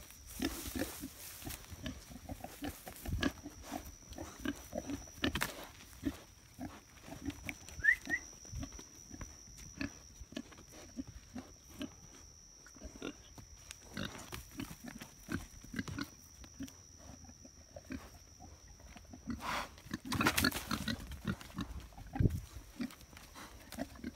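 Pig grunting in short, irregular grunts, busier and louder about twenty seconds in, with a faint steady high-pitched whine in the background.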